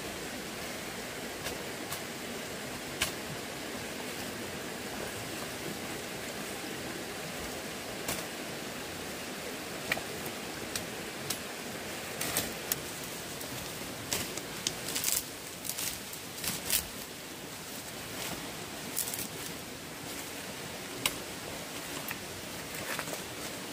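Steady rush of a flowing stream, with scattered short clicks and knocks that bunch together in the middle.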